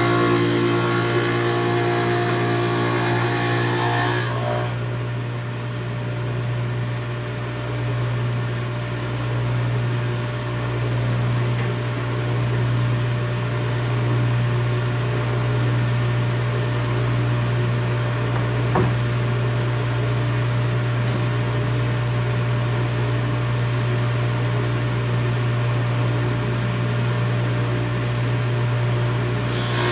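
Table saw fitted with a dado blade stack, running steadily with a constant motor hum. The sound changes abruptly about four seconds in and again near the end, when higher tones drop away and then come back.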